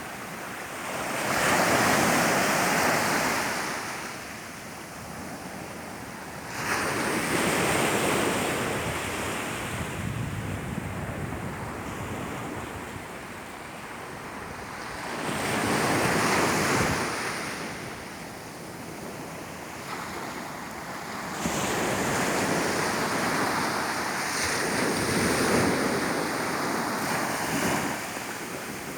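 Mediterranean sea waves breaking on the beach, the surf rising and falling in slow swells a few seconds apart.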